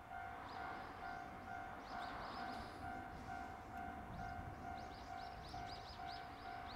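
Japanese railway level-crossing warning bell ringing: an electronic two-pitch ding repeating evenly about twice a second, the signal that a train is approaching and the crossing is closing.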